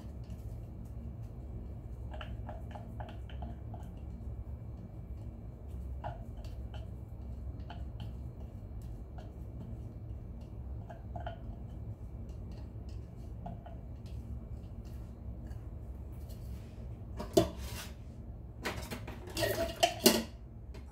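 Glass bowl and spatula tapping and clinking against a glass mixing bowl while grated carrots are scraped out, with a louder clatter of glass and utensils near the end. A steady low hum runs underneath.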